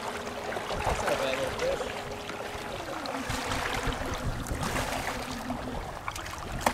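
Choppy seawater sloshing against a kayak hull in the wind, with the steady whine of a small electric outboard motor that drops to a lower pitch about a third of the way in.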